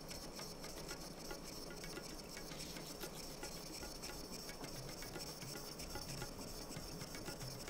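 Leather-cutting knife (kawatachi) being stroked on a Maruoyama natural whetstone: faint, irregular rubbing and ticking of steel on wet stone. A steady high-pitched tone runs underneath.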